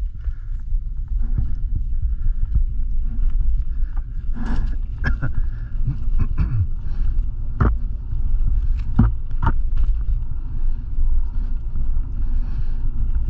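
Mountain bike rolling fast down a dirt forest trail: a steady low rumble of wind on the microphone and tyre noise, with scattered sharp clicks and knocks from the bike jolting over the trail, most of them between about four and ten seconds in.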